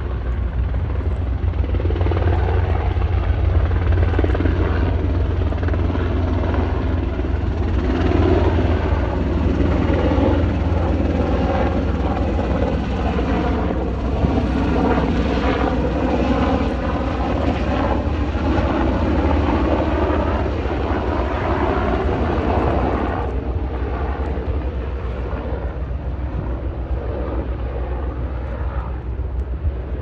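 Aircraft flying overhead: a low steady drone with a wavering engine tone that builds over the first few seconds and drops away a little over twenty seconds in.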